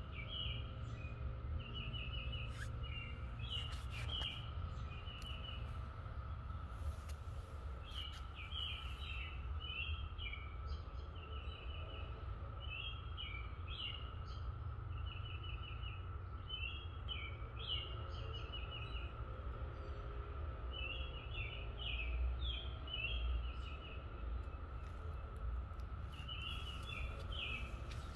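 A songbird singing short trilled phrases every few seconds over a steady, unbroken drone from a distant chorus of periodical cicadas, with a low rumble of wind or background noise underneath.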